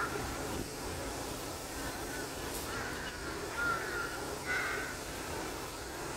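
Birds calling several times in the middle, short pitched calls over steady outdoor background noise.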